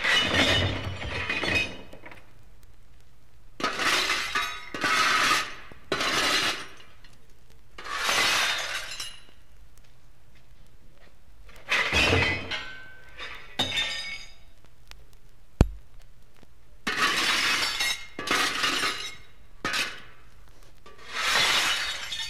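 Shovel scooping and tossing scrap metal: a series of clanking, clattering metal crashes, one stroke every one to two seconds with short pauses between, plus a single sharp knock.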